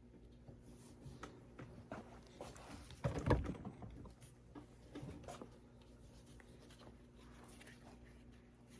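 Rivet press squeezing a splash rivet through leather: one short, heavy press about three seconds in, with lighter clicks of handling before and after it, over a faint steady hum.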